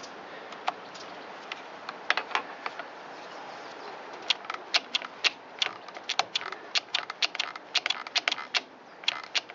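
Irregular small clicks and taps of hand work on an Echo SRM225 trimmer's throttle cable adjuster, as its nut is turned and the linkage is worked; a few scattered clicks at first, then a quick irregular run of them from about four seconds in.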